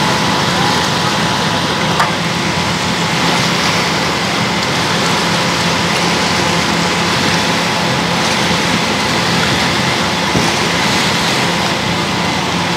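Engines running under a steady hiss, with a single sharp click about two seconds in.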